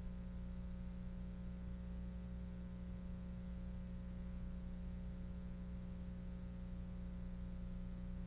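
A steady low electrical hum with a faint thin high whine above it, with no sound of the demolition itself.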